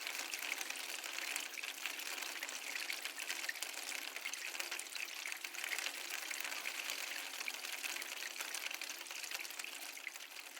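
Water flowing steadily, an even splashing rush that begins to fade near the end.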